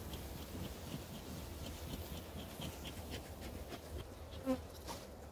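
Honeybees buzzing around an open hive, with faint clicks and scratches of hive parts being handled. Near the end one bee buzzes briefly close by.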